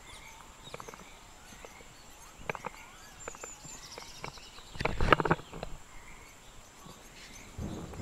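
Footsteps climbing concrete stairs: scattered short knocks and scuffs, with a louder cluster of knocks and scraping about five seconds in. Behind them, a steady high insect buzz and a few bird chirps from the forest.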